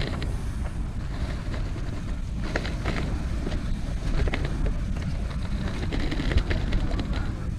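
Wind buffeting the camera microphone in a steady low rumble, with scattered light clicks and taps from fishing tackle being handled.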